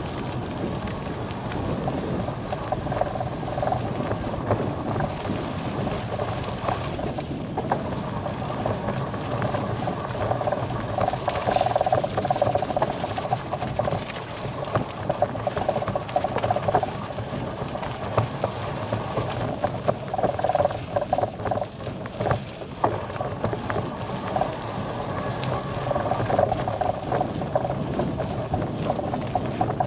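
Bicycle riding along a road: a steady rush of tyre and wind noise, with a hum that swells and fades several times.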